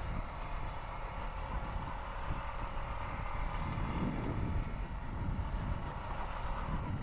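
Honda Foreman 520 ATV's single-cylinder engine running steadily as the quad rides along a dirt trail.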